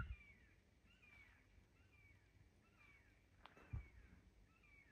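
A bird calling faintly and repeatedly, in short falling chirps about every half second, against near silence. A soft thump comes about three-quarters of the way in.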